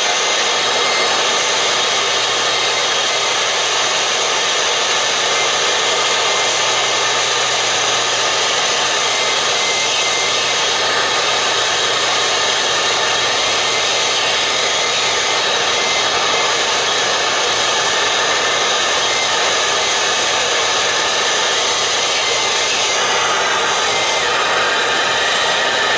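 Gas torch flame hissing steadily while it heats a copper pipe joint for soldering.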